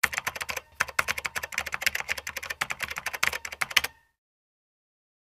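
Typing sound effect: rapid key clicks, several a second, with a short break just before one second in, stopping abruptly about four seconds in.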